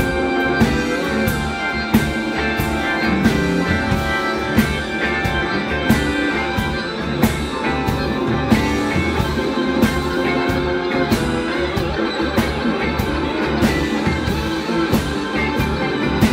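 Live blues-rock band playing an instrumental passage: drawbar organ chords and guitar over drums that keep a steady backbeat with sharp regular hits.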